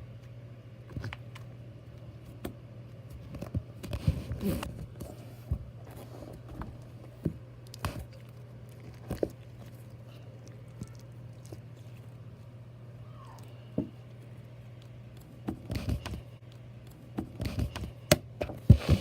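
Slime being handled: irregular small squishes, clicks and taps, bunched in two spells, over a steady low hum.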